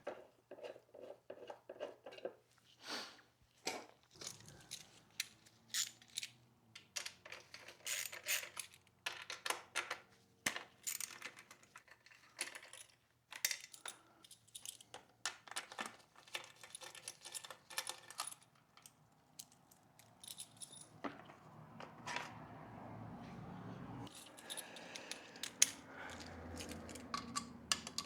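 Metal tools and small parts clinking and rattling as they are handled and set down: a long run of irregular light clicks and clanks.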